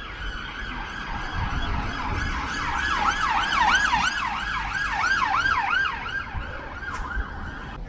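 Emergency vehicle siren yelping, a fast rising-and-falling tone about three times a second that grows louder and then fades. Wind rumbles on the microphone underneath.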